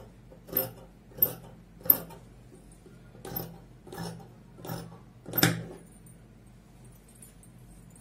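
Tailor's scissors snipping through dress fabric, one cut about every two-thirds of a second, stopping about five and a half seconds in; the last snip is the loudest.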